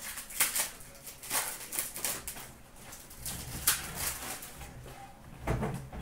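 Hockey card packs and cards handled by hand: short, irregular crinkles, rustles and clicks of pack wrappers and card stock as packs are opened and cards are flicked through.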